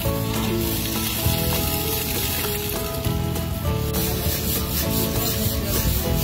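Water from a hose hissing steadily onto an elephant's hide, then, about four seconds in, a quick run of rhythmic rubbing strokes as the elephant's skin is scrubbed. Soft background music with held notes plays underneath.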